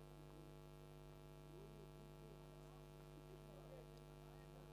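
Near silence: a faint, steady electrical mains hum with its overtones.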